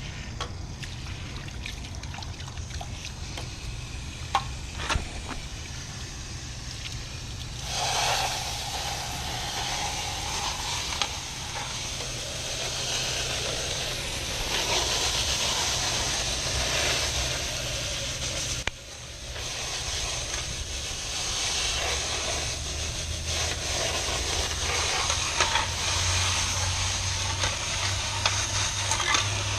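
Water spraying from a hose, starting about eight seconds in with a brief break later, washing debris out of a clogged chilled-water pump strainer basket. A steady low hum of running equipment sits underneath, with a few clicks early on.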